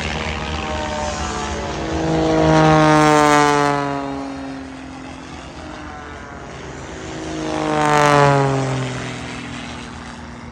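Propeller-driven aircraft flying past low, twice, about 3 and 8 seconds in. Each pass swells and then drops in pitch as it goes by, over a steadier engine drone.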